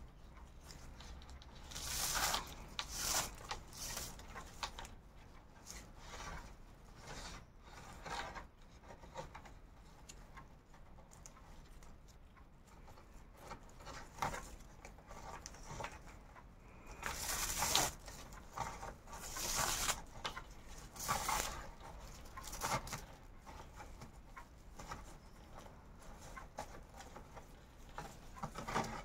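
Paper raffia yarn rustling as it is drawn through crocheted raffia stitches with a needle, in a series of pulls that are loudest about two seconds in and in a cluster from about seventeen to twenty-two seconds.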